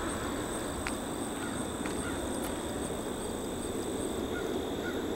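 Steady outdoor background noise, with a few faint bird chirps about four to five seconds in.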